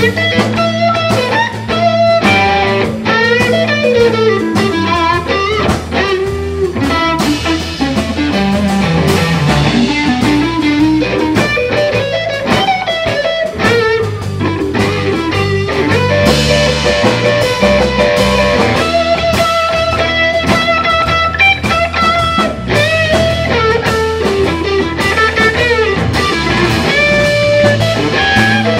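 Live blues-rock band playing: a Stratocaster-style electric guitar takes a lead solo full of string bends, over bass and drums.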